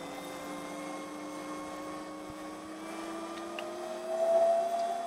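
Electric motor of an OSET 24R electric bike whining under way, its pitch rising slowly as the bike gathers speed, and getting louder about four seconds in.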